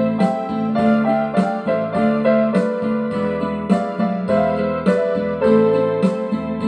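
Electronic keyboard playing a Gypsy song tune in piano-like tones: a melody over a steady bass and chord accompaniment.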